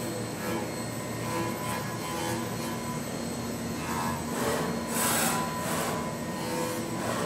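Five-axis CNC milling machine cutting a laminated katsura wood block: a steady spindle whine with the rasp of the cutter in the wood, swelling into louder hissing passes about four seconds in and again near the end.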